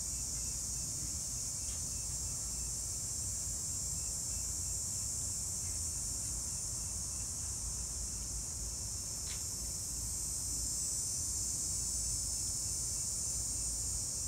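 Insects chirring in a steady, high-pitched chorus, with faint chirps repeating about twice a second. A low rumble runs underneath, and there is a single sharp click about nine seconds in.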